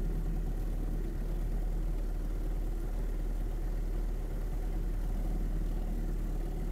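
Small boat's motor running steadily at low, idle-like speed while the boat cruises slowly, a constant low hum.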